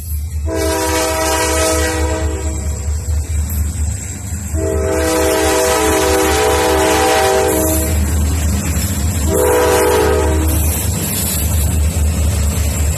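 Great Lakes Central Railroad diesel freight locomotives passing close by with a low engine rumble. The lead unit's multi-chime air horn sounds two long blasts and a short one, and a fourth blast starts right at the end: the long-long-short-long grade-crossing signal.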